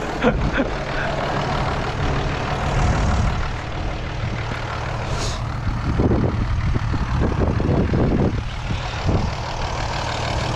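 Ursus tractor's diesel engine running steadily under load while pulling a harrow. A few close knocks and scuffs come between about six and nine seconds in.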